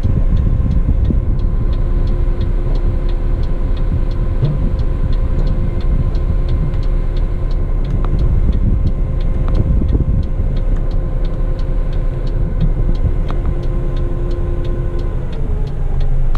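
Heavy rigid truck's diesel engine running with a steady low rumble and a steady whine, with a fast regular faint ticking of about three or four clicks a second over it.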